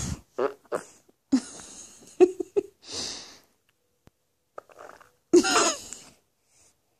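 Newborn baby grunting and straining to pass a bowel movement: short grunts and breathy huffs, with a longer strained cry about five and a half seconds in.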